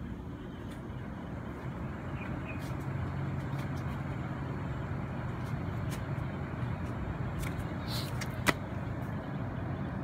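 Kolin mini split air conditioner's outdoor condenser unit starting up: a low steady hum builds from about three seconds in over a steady rushing noise. Near the end there is a single sharp click.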